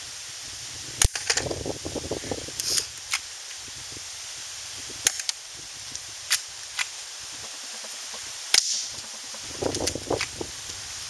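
Cybergun Colt M1911A1 airsoft pistol firing BBs at a target: a series of sharp pops a few seconds apart, the loudest about a second in, with some rustling handling noise between shots.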